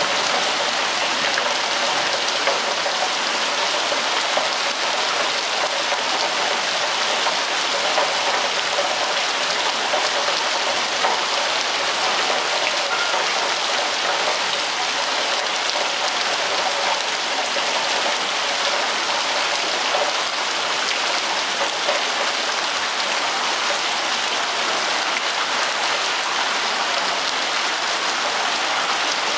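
Rain falling steadily: a dense, even patter of drops.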